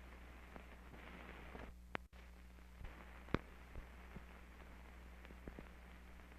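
Surface noise of an old optical film soundtrack: a steady low hum and hiss with scattered pops and clicks, the loudest about three seconds in. A split-second dropout just after two seconds falls at a picture cut, typical of a splice in the print.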